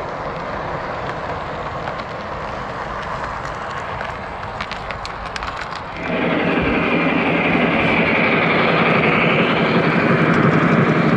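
O-gauge model freight cars rolling past on three-rail track, wheels rattling with sharp clicks over rail joints. About six seconds in the sound jumps louder and fuller as a different model train passes close by, with a high rushing sound over the rolling noise.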